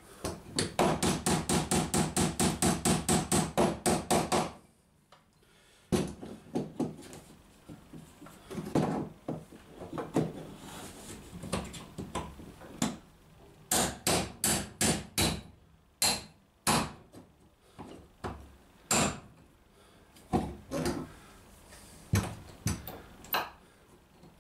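Hand hammer striking a rove punch, driving a copper rove down over a copper boat nail through a wooden rail, while a second hammer is held against the nail head as a dolly. A fast run of about six ringing blows a second for about four seconds, then slower, irregular taps.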